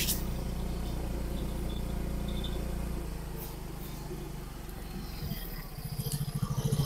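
A motor vehicle's engine running steadily, with a fast pulsing rise near the end as it picks up.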